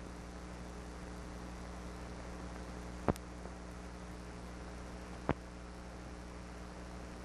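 Steady mains hum and hiss from the soundtrack of old silent newsfilm, broken by two sharp clicks about three and five seconds in.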